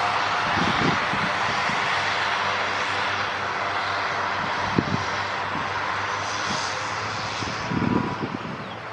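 Aircraft engine noise, a steady rushing that slowly fades away, with a few short low knocks, the strongest near the end.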